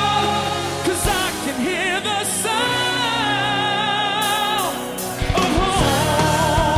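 A rock band playing live, with a lead melody of long held notes with wide vibrato over the band; the accompaniment changes about five seconds in.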